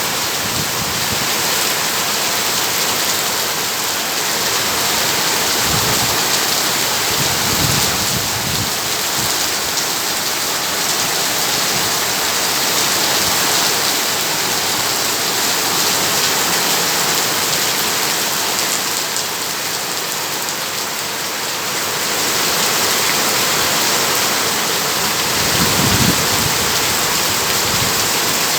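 Heavy downpour: a dense, steady hiss of rain. A few dull low thuds come through about a quarter of the way in, and a stronger one near the end.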